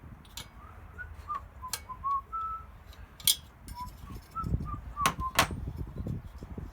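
A person whistling a tune softly, short notes stepping up and down, with several sharp clicks of metal tools being handled, the loudest near the middle and two close together near the end.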